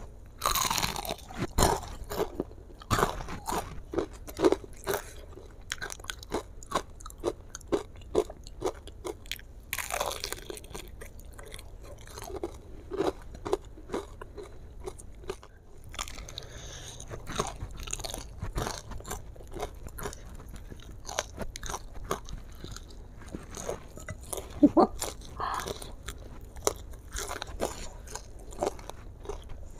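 Biting and chewing crispy battered fried chicken: many irregular crunches of the crust between chewing sounds.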